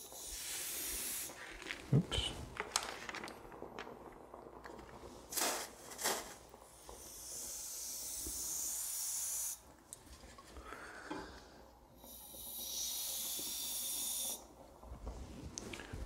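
Can of compressed air sprayed in three hissing blasts, the middle one the longest, with a few short knocks and handling sounds between them.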